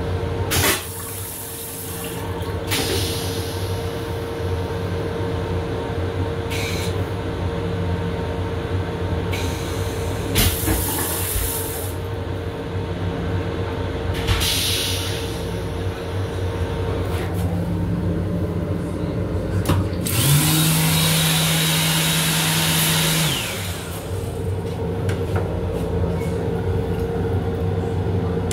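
Restroom of a moving Metro-North M7 electric railcar: the train's steady running hum and rumble, with short hisses every few seconds and the water of the stainless toilet's flush cycle. About 20 seconds in, a louder steady hum with hiss lasts about three seconds.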